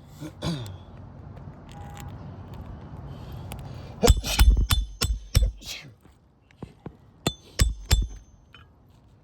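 Hammer blows on a metal roof snake driving roofing nails under a shingle tab, each blow a sharp, ringing clink. A quick run of about six blows comes about four seconds in, then three more near the end.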